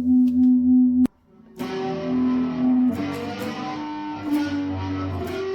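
Distorted electric guitar played through an analog flanger pedal. A held note pulses about four times a second and cuts off abruptly about a second in. After a short gap, a run of single notes follows.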